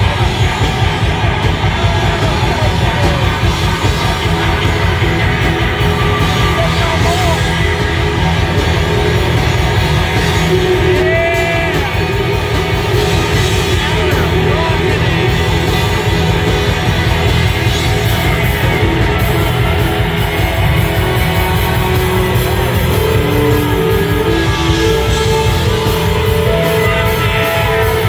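Rock band playing live and loud, electric guitars over drums, heard from the audience.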